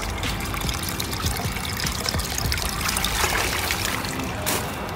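Water splashing and trickling in a steady rush as a small 1/18-scale RC truck drives into water and is submerged.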